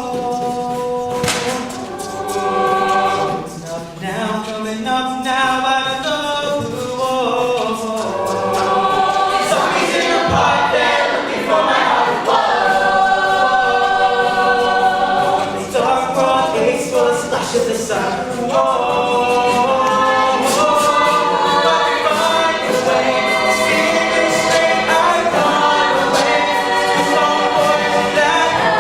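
An a cappella group singing a pop-rock cover, several voices layered in harmony with no instruments. The sound grows fuller and louder about nine seconds in.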